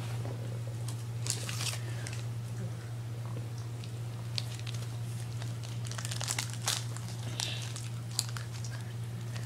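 Scattered crinkling and rustling noises, a few short crackles at a time, over a steady low hum.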